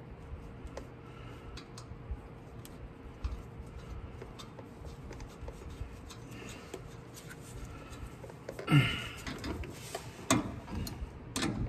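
Faint clicks and taps of small metal hardware (nuts, lock washers and a wrench) being handled while nuts are threaded onto a truck drive shaft's U-joint bolts. A louder burst of handling noise comes about nine seconds in, with a few sharper clicks near the end.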